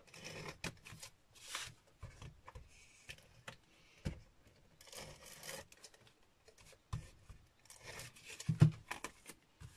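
Paper and card being handled and pressed down: short rustling and rubbing passes, with a tape runner laying adhesive and a few light knocks on the desk.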